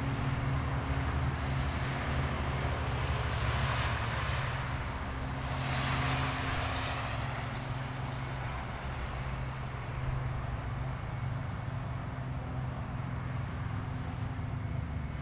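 Road traffic: two vehicles pass, about four and six seconds in, each swelling and fading, over a steady low hum.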